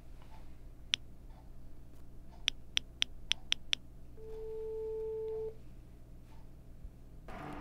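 Smartphone keypad clicks: one tap, then six quick taps in a row as a number is entered, followed by a single steady electronic tone lasting just over a second as the call is placed.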